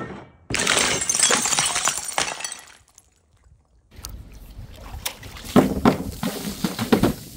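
Glass containers full of liquid being smashed and dropped. A loud crash and splash starts suddenly about half a second in and fades over two seconds, then after a short gap come further splashes and sharp hits, loudest near the end.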